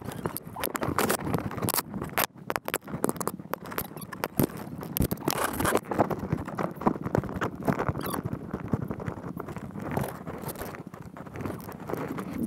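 Dry grass, reeds and branches crackling and scraping against a plastic whitewater kayak and the head-mounted camera, with irregular squeaks and snaps as the boat is forced through thick brush.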